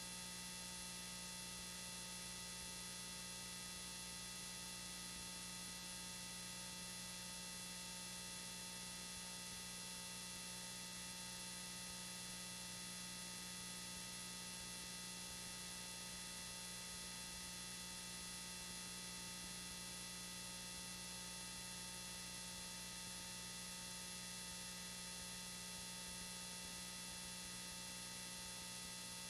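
Steady electrical hum with many overtones over a constant hiss, unchanging throughout and with nothing else heard: a faulty audio track.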